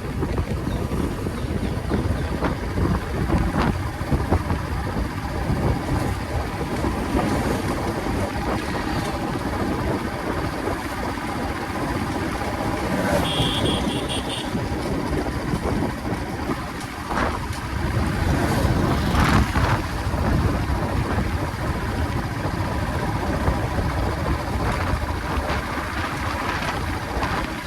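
Royal Enfield Classic 350's single-cylinder engine running steadily while the motorcycle is ridden along the road, with a dense low rush of road and wind noise. About halfway through, a short high electronic tone sounds, as from another vehicle's alarm or horn.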